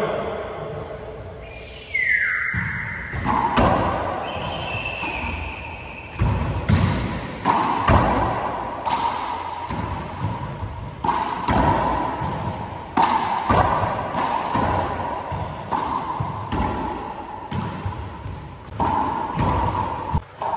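A handball rally: the small rubber ball slapped by hand and smacking off the front wall and hardwood floor, a string of sharp thuds at irregular intervals that echo in the walled court.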